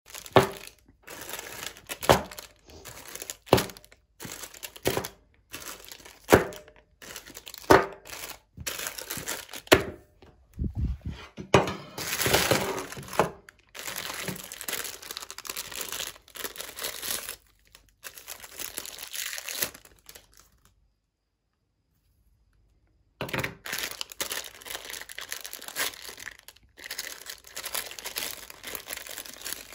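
Plastic ice-pop wrappers crinkling as the packets are handled and one is torn open. The first part holds a series of sharp knocks, about one every second and a half, before the crinkling; it breaks off for a couple of seconds partway through.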